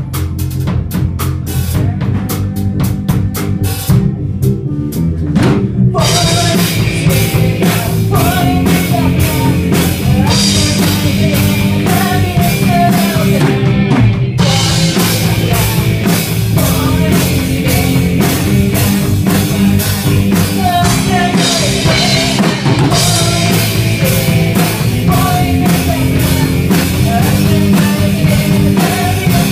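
A small rock band playing live: a Tama drum kit, bass guitar and electric guitars. A girl's voice sings lead from about six seconds in.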